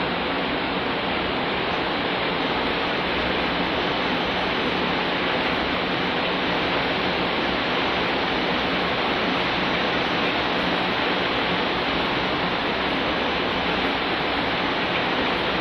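A steady, even rushing hiss that does not change or break.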